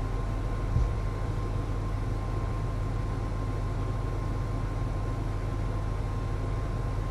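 Steady low hum and hiss with a faint steady high tone, like running machinery, and a single soft knock about a second in.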